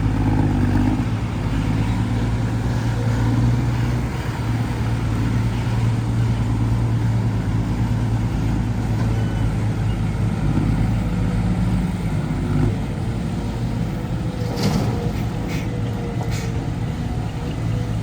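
Dump truck's diesel engine running steadily, with three short sharp high hisses or clicks near the end.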